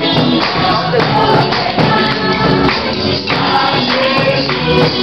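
A group of voices singing a lively song, with hand-clapping and percussion keeping a steady beat.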